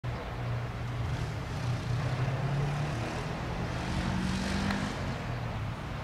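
Beech C90A King Air's twin Pratt & Whitney PT6A turboprops on landing approach: a steady low drone of engines and propellers. About four seconds in, a brief hiss rises over it.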